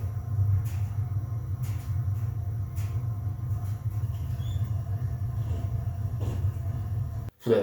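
A steady low rumble that cuts off abruptly near the end, followed by a brief throat sound.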